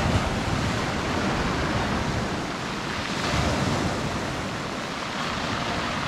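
Sea waves washing onto a gravel beach, swelling louder near the start and again about three seconds in.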